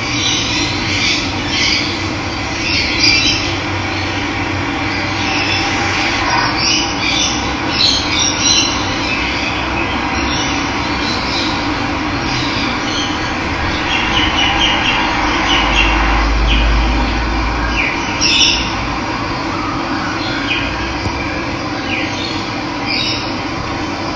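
Steady rush of running water with birds chirping on and off over it, and a brief low rumble about two-thirds of the way through.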